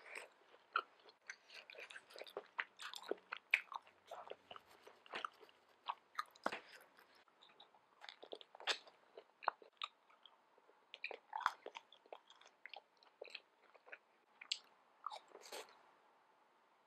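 A person biting and chewing pan-fried dumplings and spicy stir-fried noodles, with many short, irregular wet mouth clicks and smacks.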